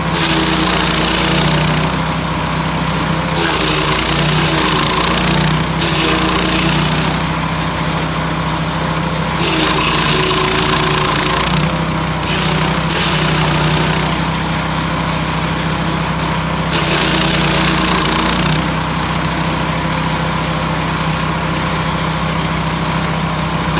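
Lumag HC10 portable wood chipper running steadily, with repeated bursts of harsh chipping noise lasting a second or two each as branches are fed in and shredded; the engine note dips under each load.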